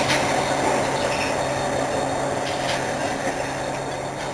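Hastings diesel-electric multiple unit 1001 rolling slowly past, its English Electric diesel engine giving a steady drone, with a few light clicks from the wheels and carriages.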